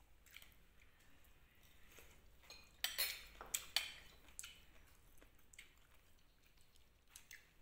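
Metal spoon clinking against ceramic bowls and plates while eating: a quick run of three sharp clinks about three seconds in, with a few lighter taps around them.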